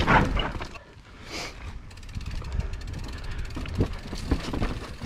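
Mountain bike rolling over a rough trail: a steady low rumble from the tyres, with scattered knocks and rattles from the bike, several of them close together near the middle.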